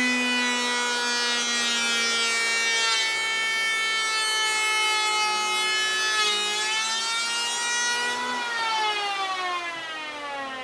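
Wen 6534 8-amp electric hand planer running at full speed with a steady high whine, its pitch sagging slightly about six to eight seconds in. At about eight and a half seconds it is switched off and the whine falls steadily in pitch and loudness as the cutter drum spins down.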